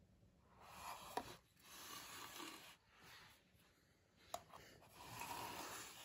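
Faint rubbing and scraping in several short bouts, with two light clicks, as a Gemmy Pete the Repeat Parrot plush toy on its perch is handled and turned on carpet.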